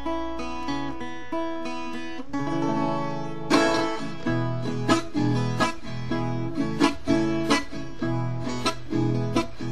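Viola caipira, the Brazilian ten-string folk guitar with paired strings, played solo in the pagode rhythm. It starts with plucked notes ringing over one another, then from about three and a half seconds in sharp strummed strokes cut in, in an uneven, syncopated pattern.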